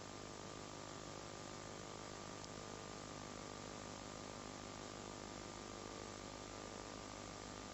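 Steady electrical hum with a layer of hiss, unchanging throughout; no other sound stands out.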